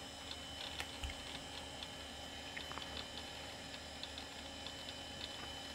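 Faint, irregular ticking of a vintage Macintosh hard drive seeking as Mac OS loads at startup, over a steady machine hum.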